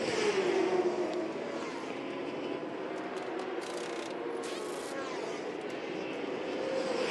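Racing motorcycles passing on the circuit, each engine note dropping in pitch as it goes by: one at the start and another near the end. A few short clicks come in between.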